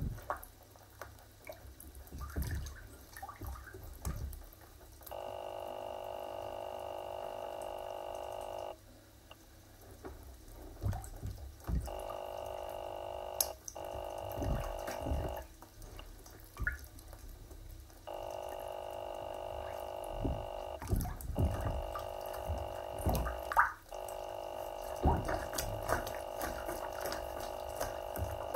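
Feet in sneakers stepping and shifting in shallow bathtub water, making irregular sloshing splashes. A steady hum of several tones switches on and off in blocks of a few seconds.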